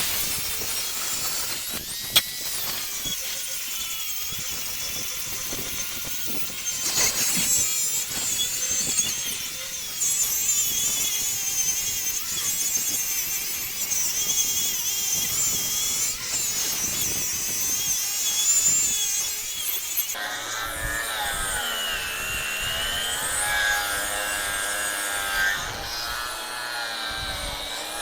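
Power tool working steel bar stock, a steady grinding-cutting noise with a wavering high whine. About two-thirds of the way through, the sound changes abruptly to a different tool pass.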